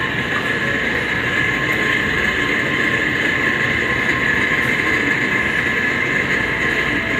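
Steady mechanical drone of supermarket refrigeration equipment at a refrigerated meat display case, with a constant high hiss over a low rumble and no break or change.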